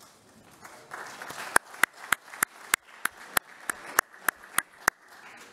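Applause in a hall, with a run of about a dozen sharp, evenly spaced cracks over it, about three a second, that stop near the end.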